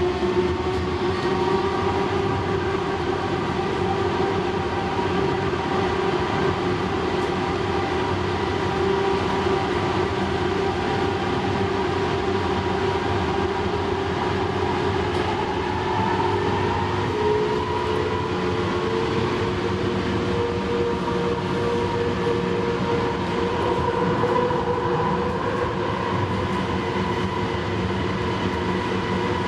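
Lynx Blue Line light-rail car running at speed, heard from inside the car: a steady rumble of wheels on rail under a motor whine. The whine climbs slightly in pitch about halfway through.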